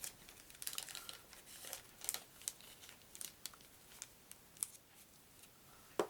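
Plastic packaging crinkling and rustling as it is handled, in short irregular crackles and clicks.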